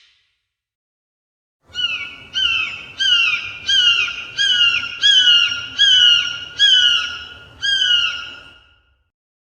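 A bird calling a series of about ten short notes, each dropping in pitch at its end, at roughly one and a half notes a second; the series starts about two seconds in, swells, then fades away.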